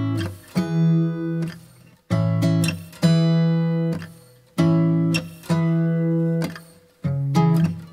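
Background music: acoustic guitar chords plucked and left to ring out, a new chord about every second.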